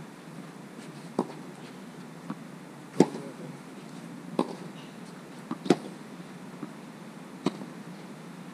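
Tennis rally: sharp pops of rackets striking the ball, with softer ball bounces in between, about one and a half seconds apart; the loudest hits come about three seconds in and again near six.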